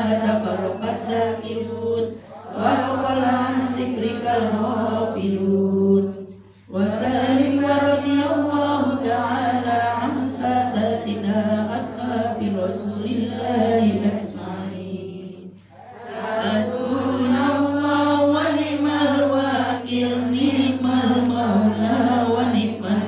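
Group of women chanting Arabic Islamic prayer together, led by one woman's voice amplified through a microphone and loudspeaker. The chant runs in long drawn-out phrases with brief breaths between them, over a steady low hum.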